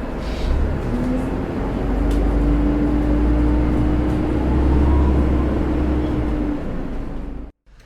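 A heavy vehicle running, a deep steady rumble with a low whine held over it that steps up slightly in pitch about a second in. It cuts off abruptly near the end.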